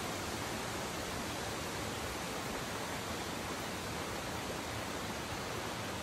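Small rocky river flowing over and between boulders: a steady, even rush of water.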